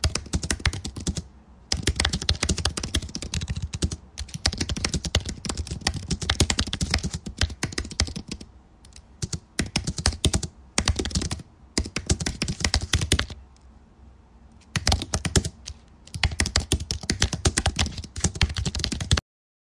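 Computer keyboard typing sound effect: rapid key clicks in runs of a few seconds with short pauses between them, stopping abruptly just before the end.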